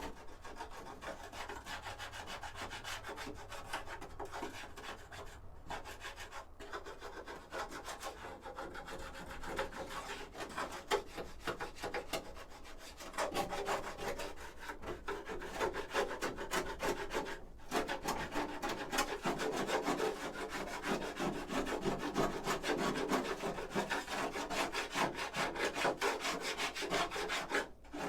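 Rapid back-and-forth scrubbing or scraping on the ATV's plastic body panels, stripping off softened residue after paint thinner. The strokes stop briefly a few times and grow louder about halfway through.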